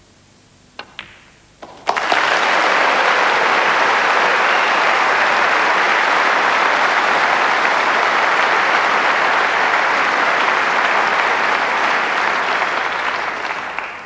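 Snooker cue striking the cue ball and balls clicking together in a few sharp knocks, then a crowd applauding steadily from about two seconds in, fading near the end: applause for a pot of the pink that brings up a century break.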